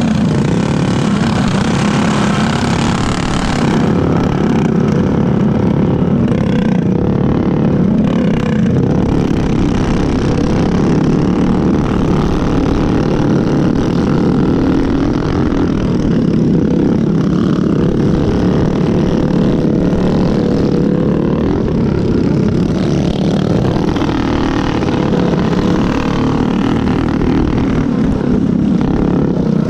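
Go-kart's stock Predator single-cylinder four-stroke engine running hard at racing speed, heard loud and steady from on board, with other karts' engines running close ahead.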